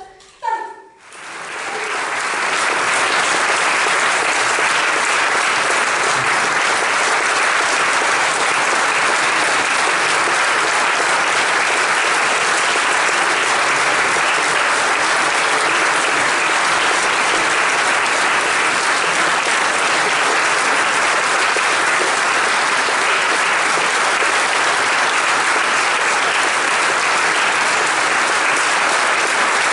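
Theatre audience applauding: the clapping swells up about a second in and then holds steady and dense.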